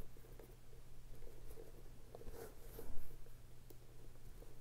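Soft rustling and light clicks of a leather bag strap being handled and threaded through the bag's fittings, with a louder rustle about two and a half seconds in.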